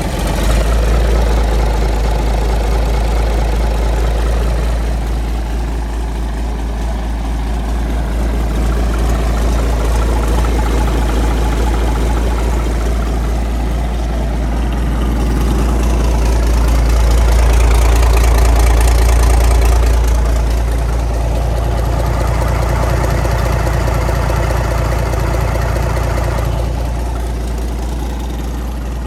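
Freshly rebuilt Gardner 6LXB six-cylinder diesel engine idling steadily just after starting, running on a stand with no coolant in it. It swells a little louder for a few seconds past the middle.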